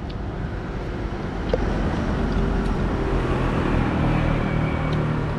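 A motor engine running, a steady low hum that grows louder about two seconds in and holds.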